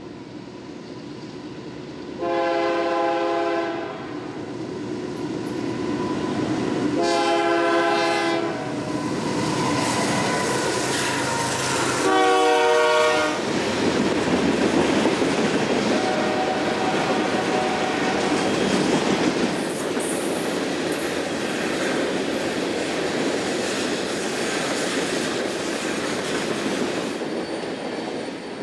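Locomotive horn sounding two long blasts and a shorter third blast, then a train passing with a steady rush and clatter of wheels on rail that fades near the end.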